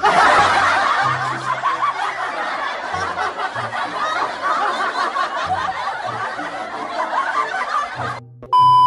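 Canned laughter sound effect, a crowd of voices laughing and snickering together over background music with a low bass line. The laughter cuts off about eight seconds in, and a steady electronic beep follows.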